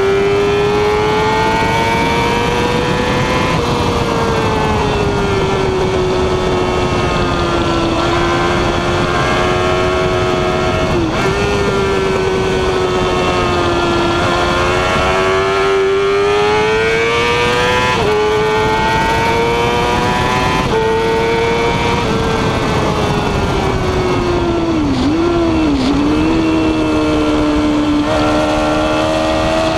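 Yamaha R6 sport bike's inline-four engine running at high revs under load, with wind rushing over the microphone. The pitch climbs and steps back down with gear changes and throttle, and dips sharply twice near the end.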